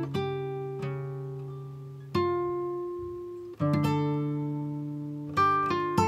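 Background music: slow plucked chords on an acoustic guitar, each struck sharply and left to ring and fade before the next.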